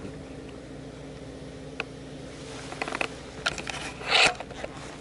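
Scattered light clicks, then a short loud scraping rustle about four seconds in, over a low steady hum: handling noise from a camera being turned by hand.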